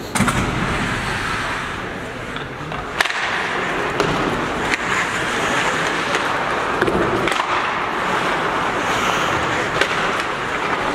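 Ice hockey skate blades scraping and carving across the ice, with sharp clacks of sticks and puck several times through it.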